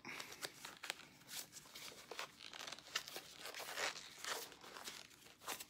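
Faint crinkling and rustling of something being handled, with scattered light clicks and taps.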